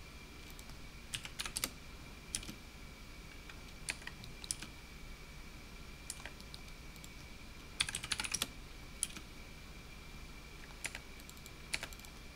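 Keystrokes on a computer keyboard in short, scattered bursts of clicks, with the densest cluster about eight seconds in. A faint steady high whine runs underneath.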